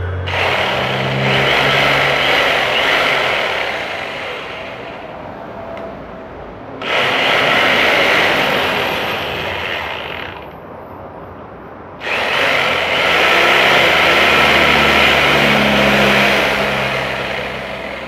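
Electric rotary hammer (martelete) running in three bursts of several seconds each, its bit driven into a piece of wood to test it after repair.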